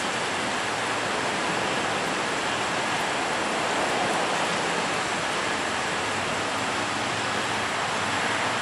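Steady, even rushing noise, without breaks or distinct events.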